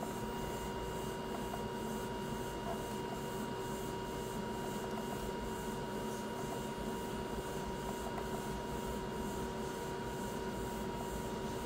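Valleylab Force FX electrosurgical generator keyed in coag mode into a test load: a steady activation tone held throughout, with a faint pulsing hiss in the highs.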